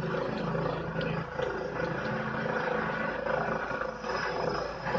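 Helicopter engine and rotor running up for takeoff: a loud, steady drone with a held tone through it.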